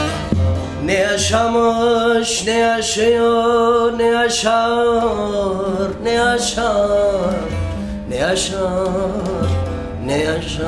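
A man singing a Turkish folk song (türkü) in long, wavering held notes while playing a long-necked bağlama (saz) with a carved mulberry bowl.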